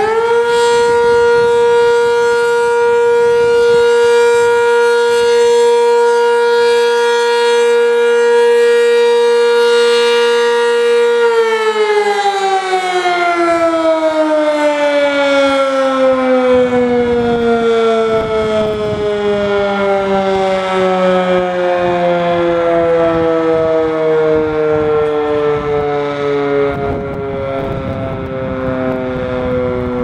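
Sentry 10V mechanical tornado siren sounding a short alert. It reaches full pitch right at the start and holds one steady tone with many overtones for about eleven seconds. Then it cuts off and winds down in a long, slowly falling pitch, with wind gusting on the microphone.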